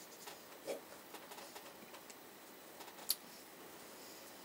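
Quiet room with faint rustling and small clicks from hands and clothing moving during sign language, including one sharper click about three seconds in.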